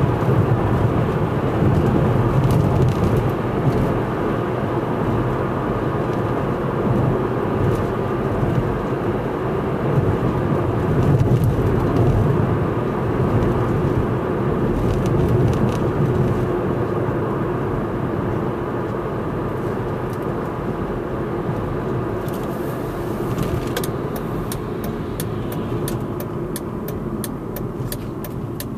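A car driving, heard from inside the cabin: steady low road and engine noise. A run of light ticks comes in over the last several seconds.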